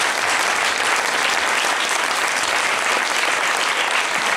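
Theatre audience applauding steadily, a dense sustained clapping.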